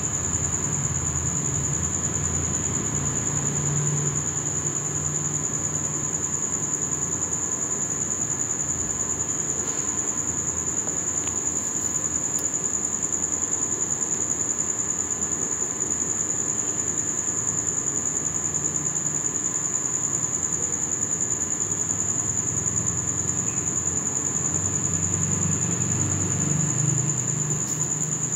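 Crickets trilling steadily in one continuous high-pitched note.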